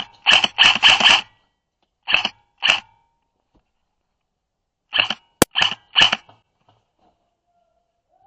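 Airsoft gun firing in quick bursts: a run of rapid shots at the start, two single shots about two seconds in, and another short burst with one sharp crack about five seconds in.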